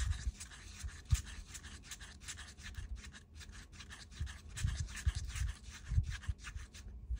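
Wooden stir stick scraping and rubbing against the inside of a small cup in quick, repeated strokes while white pigment is stirred into epoxy resin, with dull low knocks from the cup being handled.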